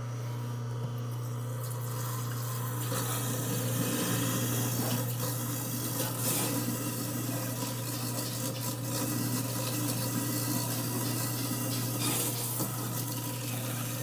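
Tap water running into a stainless-steel sink and down the garbage disposal drain, starting about three seconds in, over a steady low hum.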